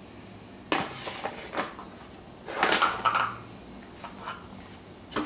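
Plastic food-storage containers and lids clattering and knocking as a toddler handles them: a couple of sharp knocks in the first two seconds, then a longer, louder run of clatters near the middle.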